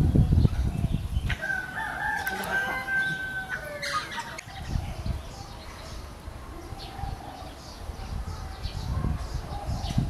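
A rooster crowing once, a long call of about two and a half seconds starting a little over a second in, after a low rumble. Faint short high chirps of small birds follow in the second half.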